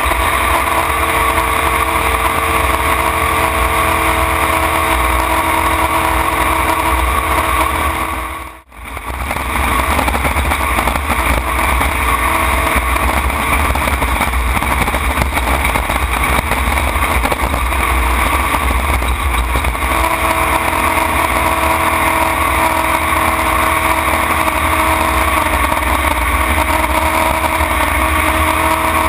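Racing tunnel-hull jet boat's engine running hard at speed, heard from the cockpit. The sound drops out for a moment about nine seconds in, then comes straight back, and from about twenty seconds in its tone holds steadier and clearer.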